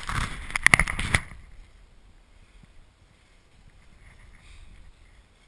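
Handling noise from an action camera: rubbing and several sharp knocks for about the first second, as it is set down on the snow, then only faint wind hiss.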